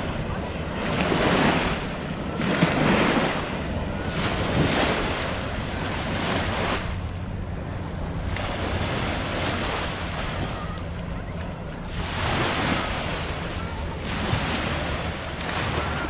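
Small sea waves breaking and washing up a sandy shore, swelling and fading in repeated surges every couple of seconds, with wind rumbling on the microphone underneath.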